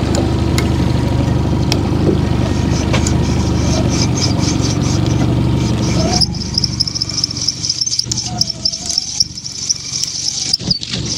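Boat motor running steadily at trolling speed with scattered sharp clicks; about six seconds in the motor noise drops away and a rapid, high clicking carries on: fishing reels clicking as line pays out behind downrigger weights being lowered.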